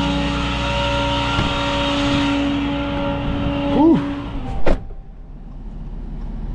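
Tow truck running on the road, heard from inside the cab: engine and road noise with a steady whine. Just before four seconds in there is a short falling tone, then a sharp click, and the whine stops and the sound drops.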